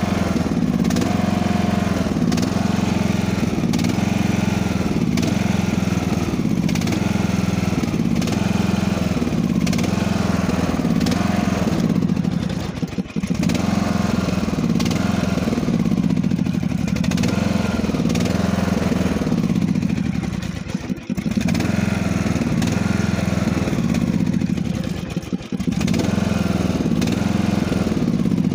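Riding lawn mower engine running steadily just after a cold start, its note rising and falling about once a second, with three brief dips in loudness.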